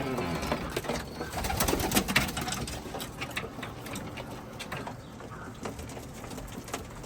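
Domestic pigeons cooing in a loft, with scattered clicks and rustling that are loudest in the first two seconds or so.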